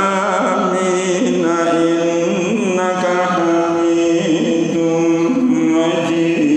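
A preacher's male voice chanting an Arabic prayer in long, drawn-out melodic intonation, holding notes for about a second at a time with ornamented turns between them: the sung closing supplication of a Friday sermon.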